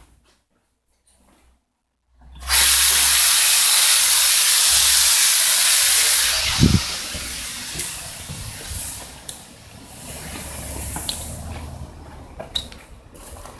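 Water running into a kitchen sink, turned on about two seconds in: a loud, steady hiss for about four seconds, then a quieter, uneven flow with a few small knocks. The water drains down the sink's waste line, whose vent opens wrongly on the outside wall instead of above the roof.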